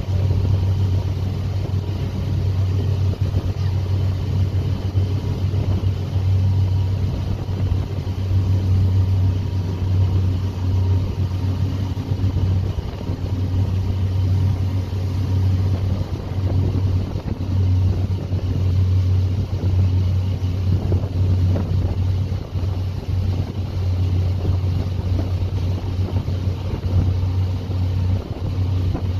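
A ferry boat's engine running steadily under way, a steady low drone, with a rush of wind and water over it.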